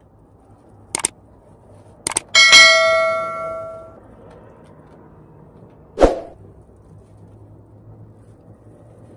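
A subscribe-button sound effect: two clicks, then a bright bell ding that rings out for about a second and a half. A short, sharp knock follows a few seconds later.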